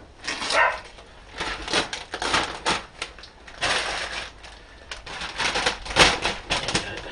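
Masking tape peeling off a car door and brown masking paper rustling and crinkling as it is pulled away and balled up, in irregular bursts with a sharper crackle about six seconds in.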